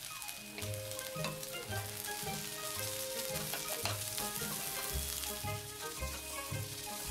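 Rice sizzling in a nonstick frying pan as it is stirred and turned over with a wooden spatula, with scattered scraping clicks. Background music with a regular low beat plays along.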